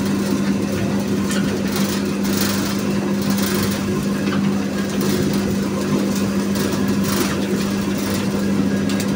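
Electric sugarcane juicer running with a steady motor hum as its rollers crush a cane stalk being fed through, with irregular crackles from the crushing stalk.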